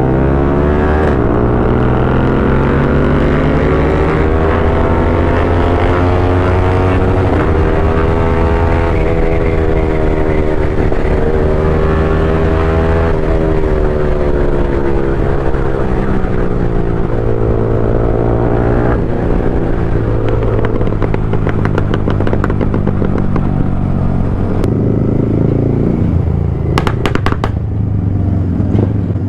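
Royal Enfield GT 650 parallel-twin engine with an aftermarket Code 6 tune, heard while riding: its pitch climbs and drops repeatedly as the rider accelerates and shifts. In the last third, after the throttle closes, sharp exhaust crackles and pops come in quick clusters.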